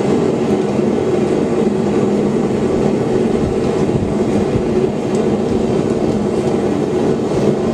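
A forge running with a steady rushing hum that stays even throughout, with no hammer blows standing out.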